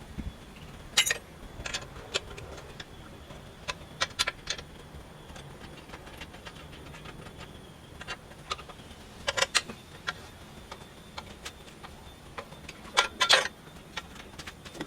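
Scattered sharp metallic clinks and knocks of hand tools and parts being handled, with louder clusters about a second in, around four seconds, around nine seconds and near thirteen seconds.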